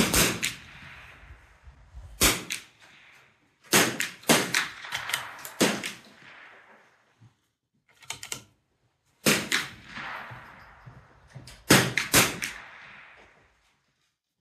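.22 LR rimfire shots from several shooters on the firing line, about a dozen sharp cracks at irregular spacing, each with a short echoing tail. There is a quick run of five or six shots about four seconds in, and a fainter pair near the middle.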